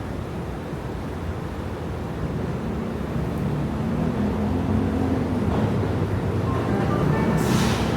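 Subway train pulling in: a low rumble builds, thin squealing tones come in near the end, and a sharp hiss of air follows just before the end.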